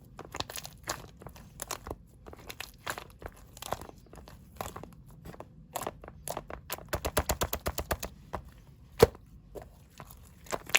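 Close-up handling sounds: irregular taps, clicks and crinkles. A quick run of taps comes about seven seconds in, and one sharp click near the end is the loudest.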